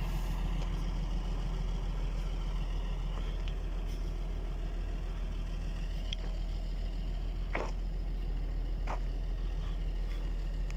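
Steady low drone of a heavy machinery engine running, with a couple of faint knocks about three quarters of the way through.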